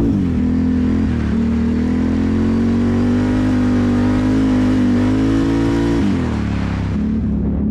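Can-Am Renegade ATV's V-twin engine running under a rider at low to moderate revs. Its pitch drops just after the start, holds with small swells, and drops again about six seconds in as the throttle is eased off and reapplied.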